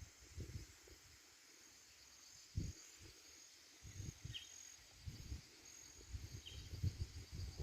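Faint outdoor ambience: a steady high insect buzz, two short falling chirps about four and six and a half seconds in, and irregular low rumbles and thumps.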